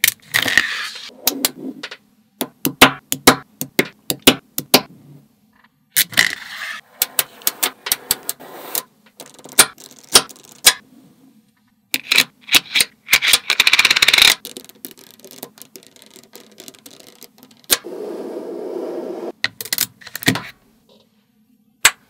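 Small neodymium magnet balls clicking and clinking as they snap together and are pressed into place, in quick runs of sharp clicks broken by brief silences. A few stretches of sliding, scraping noise come from blocks of balls moving over a plastic card.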